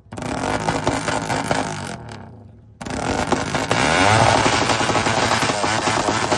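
Suzuki Raider 150 Fi single-cylinder motorcycle engine being revved through a loud, open exhaust: a sharp blip whose revs fall away, then a second rev about three seconds in that climbs and is held high, rough and crackling.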